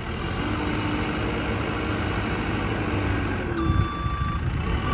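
JCB 3CX backhoe's diesel engine running steadily with a low rumble. A steady high tone comes in about three and a half seconds in.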